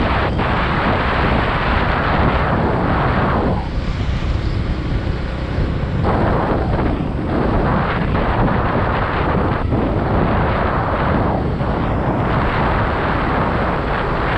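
Wind rushing over the microphone of a moving motorcycle, with the motorcycle's engine and tyre noise underneath. The wind eases for a couple of seconds about three and a half seconds in, then picks up again.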